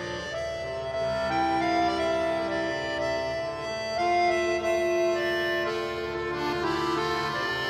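Background music: slow held chords on an organ-like instrument, the chord changing every second or so.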